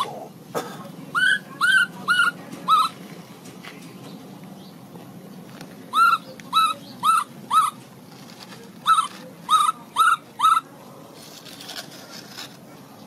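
Infant macaque calling: short high-pitched cries, each rising and then falling, in three quick runs of about four calls.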